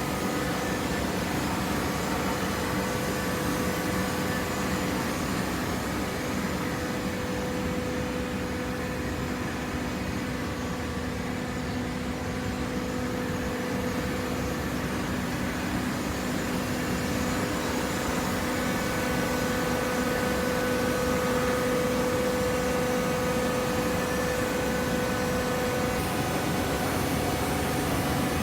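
Hydraulic baler's pump and motor running, a steady machine hum with a few held tones, growing slightly louder in the second half.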